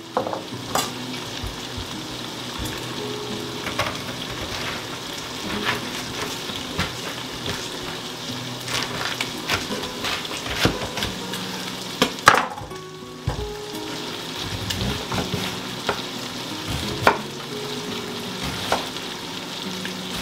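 Diced bacon frying in a Dutch oven, a steady sizzle, with scattered sharp knocks and crunches of a chef's knife cutting through a head of cabbage onto a wooden cutting board.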